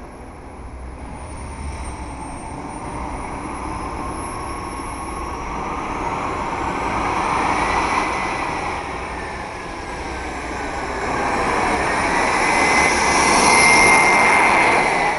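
Model jet turbine powering an RC funny car: a high whine over a jet-like rush. It swells and fades twice as the car runs, loudest near the end, and the whine glides up and down in pitch.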